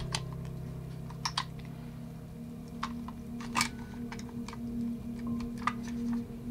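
Scattered plastic clicks and taps as a hollow plastic shark toy is handled and its orange squishy filling pulled out by hand, over a low, steady drone of background music.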